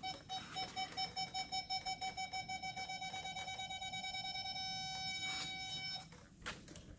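Ford Excursion reverse parking-aid beeper sounding as a hand nears the rear bumper sensors. It starts at about four beeps a second, quickens until the beeps run together into a steady tone, and cuts off about six seconds in. The system is working again after the rear sensors were replaced.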